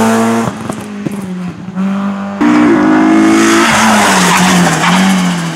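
Rally cars on a tight asphalt bend. A Peugeot 206's engine note drops away about half a second in, with a few sharp pops. Then, abruptly, a Renault Clio rally car comes in loud at high revs, its pitch falling as it lifts off into the corner, with tyre noise as it takes the bend.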